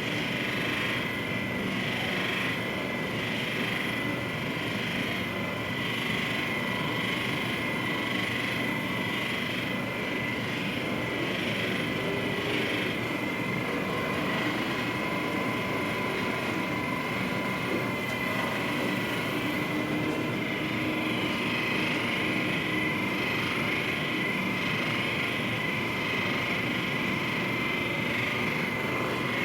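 A small electric motor running steadily, a constant buzzing drone with a high whine.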